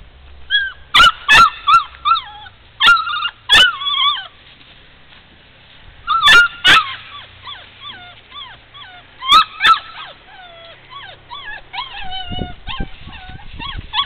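Puppy yipping and whining: many short, high-pitched cries that bend up and down, with loud sharp yelps in clusters about a second, three, six and nine and a half seconds in.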